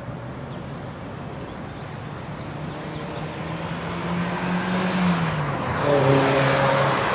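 A car driving past on the street: engine hum and tyre noise grow louder, the engine note drops in pitch as it goes by, and it is loudest about six seconds in.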